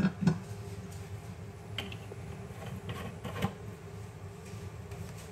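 A steady low hum from the kitchen with a few light clicks and taps, two near the start and a few more around two to three and a half seconds in.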